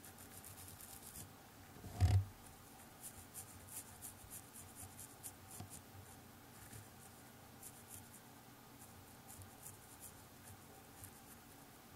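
Fine watercolour brush stroking over textured watercolour paper, a run of faint, light scratchy strokes. A single soft thump about two seconds in.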